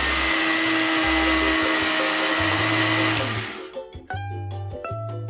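Electric mixer grinder running steadily with a loud whirr, grinding fresh coconut and cumin seeds in its steel jar. It stops about three seconds in, leaving background music with plucked strings.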